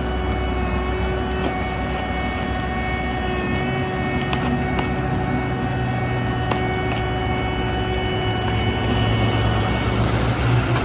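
Heavy paving equipment running steadily: diesel engines droning with a steady machine whine over them, and a few sharp clicks or knocks scattered through. A deeper engine note grows stronger about a third of the way in.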